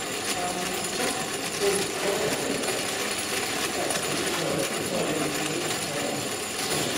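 Meccano model of the Pen-y-Darren steam locomotive running, its gears, flywheel and rods making a continuous metallic clatter.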